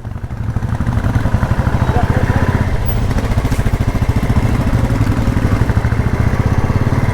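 Motorcycle engine running with a rapid, even beat as the bike moves on, picking up over the first second.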